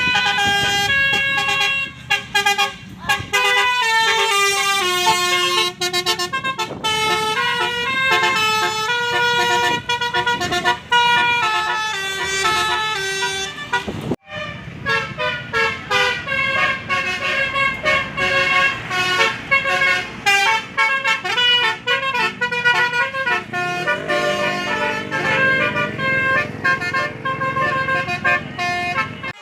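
Basuri multi-tone bus horns playing 'telolet' melodies, several pitched notes sounding together and stepping rapidly from note to note. The sound cuts out suddenly for a moment about halfway through and then starts again.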